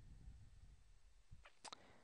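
Near silence: room tone, with two faint clicks near the end.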